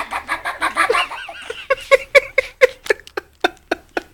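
A person's voice in a fast run of short, repeated sounds that slows and spaces out into separate bursts over the last two seconds.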